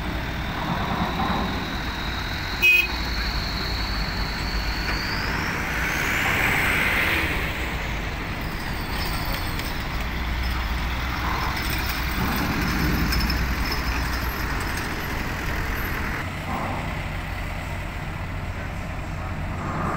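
Trucks and a bus running as they roll off a ferry down its steel ramp. One vehicle's brakes give a long, high squeal that holds steady, then climbs sharply in pitch about six seconds in and slides back down soon after. A single sharp knock a little under three seconds in is the loudest sound.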